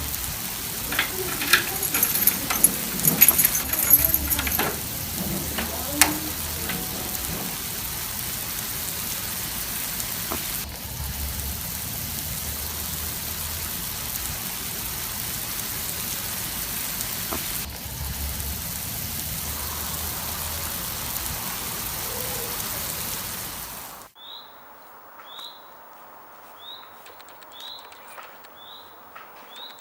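Campfire crackling: a steady hiss with sharp pops and snaps, busiest in the first few seconds, that cuts off abruptly well into the stretch. After it, a much quieter background with a short high chirp repeating about every two-thirds of a second.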